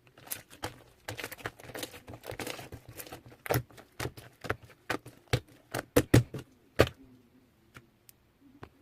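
Sharp clicks and taps with a stretch of rustling about a second in, as of packaging and small items being handled; the taps come thickest toward the end, then stop.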